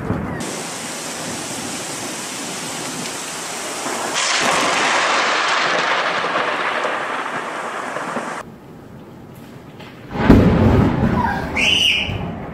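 Heavy rain in a thunderstorm, growing louder with rumbling thunder about four seconds in. About ten seconds in comes a sudden, loud, close thunderclap with a deep rumble, the loudest sound here.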